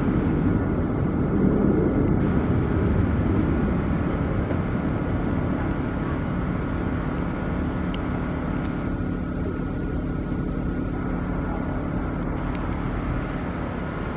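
Low, steady engine rumble, swelling about two seconds in and then slowly fading.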